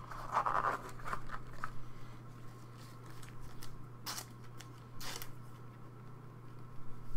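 Gloved hands handling a trading card: scratchy rubbing and scraping of the card, with two short, sharp scrapes about four and five seconds in. A steady low hum runs underneath.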